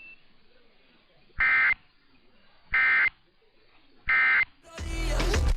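Emergency Alert System end-of-message (EOM) signal: three short, identical bursts of digital data tones, about 1.3 seconds apart. Near the end a louder, noisy sound swells up and then cuts off.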